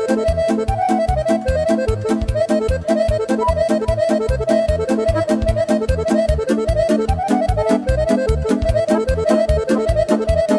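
Instrumental Romanian folk party music for a hora, accordion-led over a steady fast oom-pah beat of alternating bass notes and chords: the song's opening before the singing comes in.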